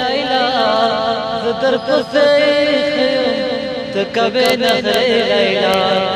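A man singing into a handheld microphone, long held notes that waver up and down in a slow, ornamented vocal line.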